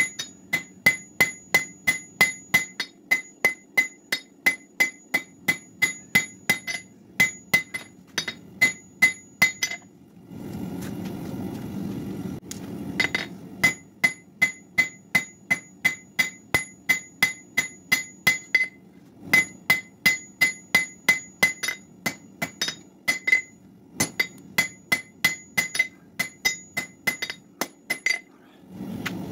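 Hand hammer striking a red-hot steel bar on an anvil in a steady rhythm of about three blows a second, each blow ringing. The hammering stops for about three seconds a third of the way in, and briefly near the end, leaving a steady low rushing noise.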